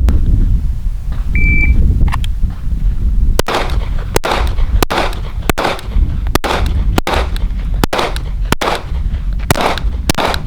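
A shot timer beeps once, briefly, about a second and a half in. About two seconds later a 9mm pistol, the Sig Sauer M18, starts firing: about a dozen shots at an even pace, roughly one every half to three-quarters of a second. Wind rumbles on the microphone throughout.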